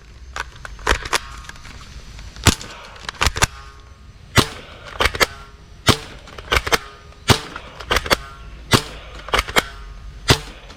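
Toy assault-rifle blaster firing repeated sharp shots, singly and in quick pairs, about one to two a second.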